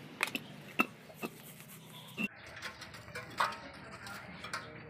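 Metal clinks and knocks from a rusty hand-tractor hub being handled on a bucket: several sharp strikes with a short ring in the first two seconds, followed by scattered fainter knocks and rustling.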